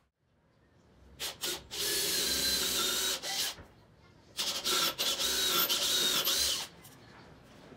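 Cordless drill running in a wooden frame: a couple of short trigger taps, then two steady runs of about two seconds each with a motor whine.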